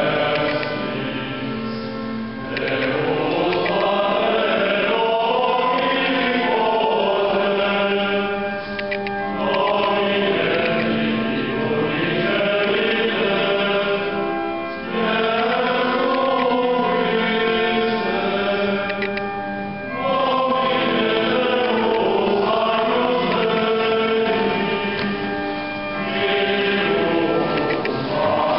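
Choir singing Latin liturgical chant for the Mass, in phrases of about five or six seconds with short breaks between them, over a held low note.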